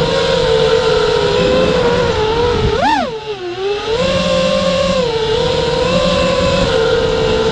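High-pitched electric motor whine of a radio-controlled model, held at a steady pitch. About three seconds in it rises sharply with the throttle, drops away below its cruising pitch, then settles back to a steady whine.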